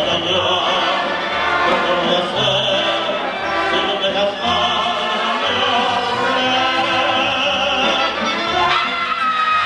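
A male ranchera singer singing with mariachi accompaniment of guitars and a guitarrón plucking the bass line. Near the end a note slides up and is held.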